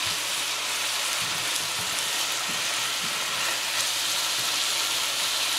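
Bora beans, potato and tomato sizzling in hot oil in a nonstick wok, a steady frying hiss, while a silicone spatula stirs them.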